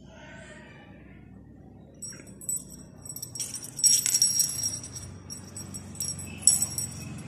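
Small metal jingle bell on a feather wand cat toy jingling as the toy is shaken and dragged, starting about two seconds in, loudest about four seconds in, with another sharp jingle near the end.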